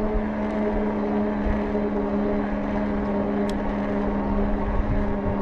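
Heybike Ranger e-bike's rear hub motor whining steadily under pedal-assist load while climbing a steady incline at about 12 mph, with wind rumbling on the microphone.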